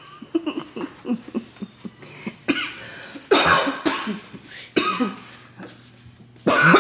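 A person coughing, four short loud coughs spread over a few seconds, after some light clicks.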